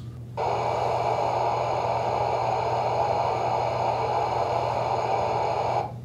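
Noise test signal from a loudspeaker, heard through a 1/8-inch aluminum honeycomb panel during a transmission-loss measurement. It is a steady rushing noise, heaviest in the lower pitches. It switches on abruptly about half a second in and cuts off just before six seconds.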